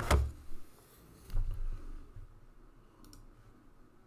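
A few clicks and dull knocks from handling things at a desk. The loudest knock comes right at the start and another about a second and a half in, with faint clicks about three seconds in.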